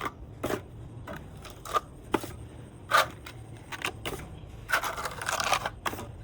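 Irregular sharp knocks and clicks of hard objects striking, the loudest about three seconds in, with a longer scraping stretch around five seconds in.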